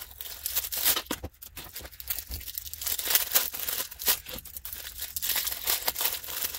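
Shiny plastic bags crinkling and tearing as 80mm cooling fans are pulled out of their packaging by hand, a dense irregular crackle.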